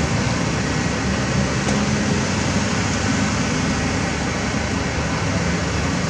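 Heavy diesel engines of an asphalt paver and a UD Trucks Quester dump truck running steadily, mixed with street traffic, as one even rumble with no distinct events.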